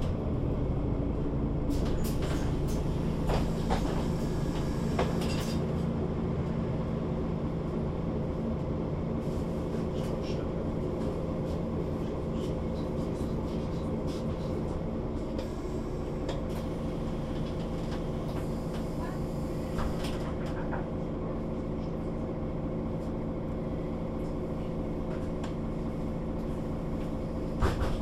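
Mercedes-Benz O 530 Citaro city bus engine running at a steady, unchanging note, with a few scattered clicks and rattles and one sharp knock near the end.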